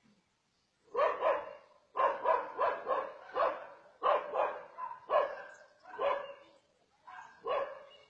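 A dog barking over and over in quick runs of two or three barks, starting about a second in.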